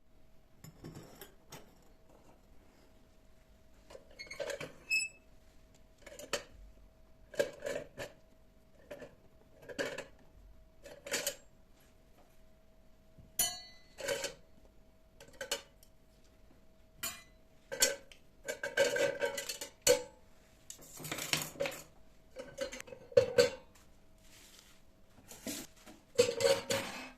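Dishes and cutlery clinking and knocking as they are handled, a long run of separate sharp clinks at an uneven pace, busier in the second half, over a faint steady hum.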